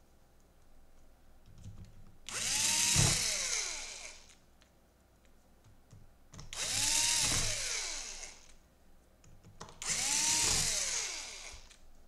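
Cordless electric screwdriver driving the laptop battery's screws, in three runs of about two seconds each. In each run the motor whine rises in pitch and then falls away.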